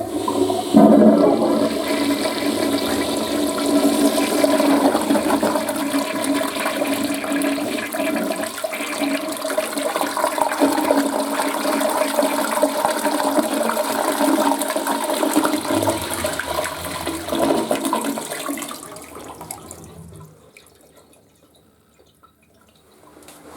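Western-style toilet flushing: water rushing steadily for almost twenty seconds, then fading away about twenty seconds in.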